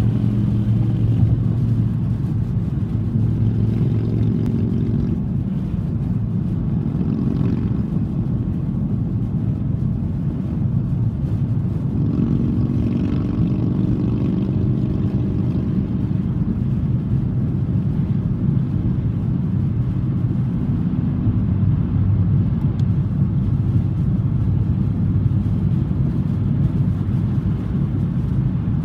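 Car cabin noise while driving at motorway speed: a steady low rumble of engine and tyres on the road.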